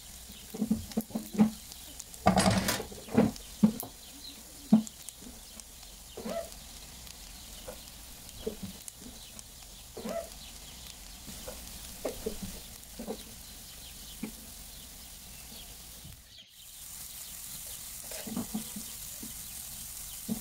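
Silicone spatula stirring and scraping chopped onion, garlic and sliced mushrooms around a nonstick frying pan, in short irregular knocks over a light sizzle. The loudest moment is a longer clattering rustle about two seconds in, as the raw mushroom slices go into the pan.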